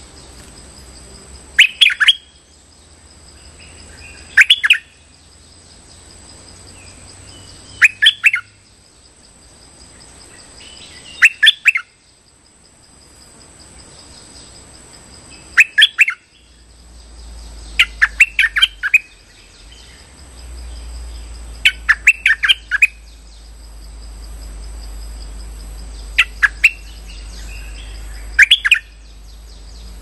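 A caged decoy bulbul (Thai 'nok dok taeng', Malay 'merbah lekir') calling as a lure. It gives short phrases of quick chirping notes, one every three seconds or so. A steady high insect drone runs beneath, and a low rumble comes in about halfway through.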